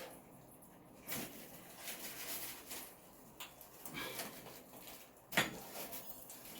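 Faint clicks and taps of hand tools and pipe fittings being handled while a shower valve is connected to the supply lines, with one sharper click about five seconds in.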